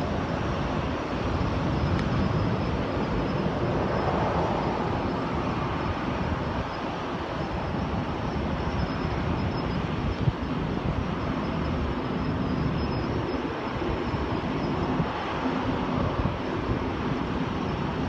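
Wind buffeting the microphone over the steady roar of jet airliners taxiing on the apron, with a faint high whine running throughout.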